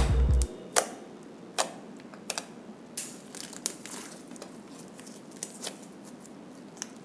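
Pale blue slime made from Sunlight dish soap being stretched and kneaded by hand, giving scattered sticky clicks and small pops. Background music stops about half a second in.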